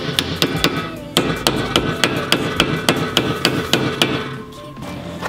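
Hammer striking a new front wheel bearing hub to seat it onto the strut spindle. A rapid run of sharp metallic taps, several a second, pauses briefly about a second in and stops about four seconds in.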